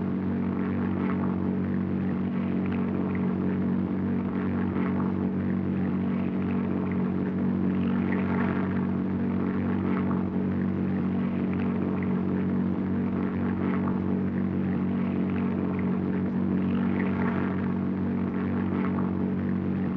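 Propeller airplane engine droning steadily in flight.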